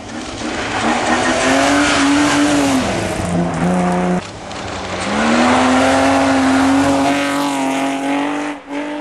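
Rally car engine revving hard under full acceleration, its pitch climbing, then dropping off around three to four seconds in. From about five seconds it pulls hard again, climbing steadily until it cuts off just before the end.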